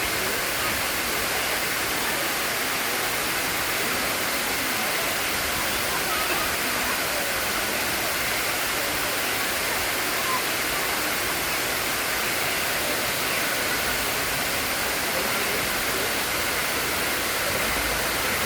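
Sai Yok Noi waterfall, water falling and rushing as a steady, unbroken roar.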